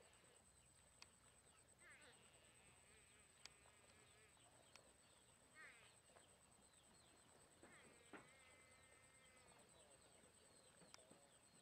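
Faint swamp ambience, close to silence: scattered soft chirps and short trills, a few single clicks, and a steady thin high-pitched whine.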